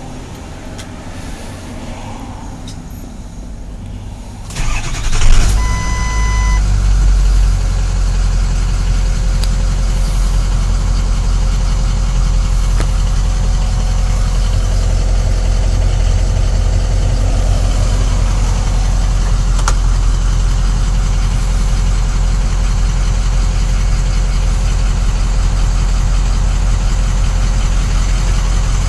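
Ford F-550 diesel engine cranking and catching about five seconds in, then idling steadily. A short electronic beep sounds just after it starts.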